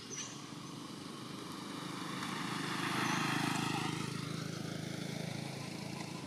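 A motor vehicle passing by: its engine noise swells to its loudest about three seconds in, then fades away.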